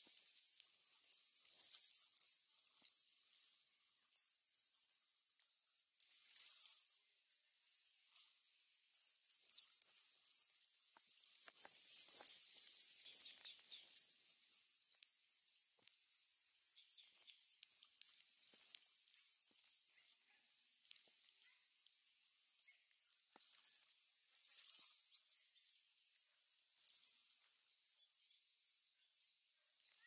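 Outdoor ambience: a steady high hiss with a few rustling swells, over a faint, regular high chirp repeating about two or three times a second.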